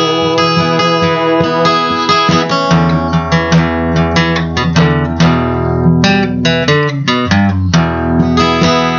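Acoustic guitar strummed, with chords struck one after another in an instrumental passage of a song and no voice over it.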